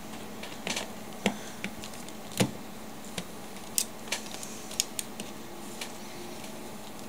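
Scattered small sharp clicks and taps of a screwdriver and plastic parts as the antenna screw is taken out of a cordless phone handset and its circuit board is handled, about a dozen in all, the loudest about two and a half seconds in.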